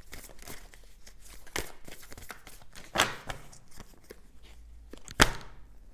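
Tarot cards being shuffled and handled by hand: a run of soft rustles and light card slaps, with sharper snaps about one and a half, three and five seconds in, the last the loudest.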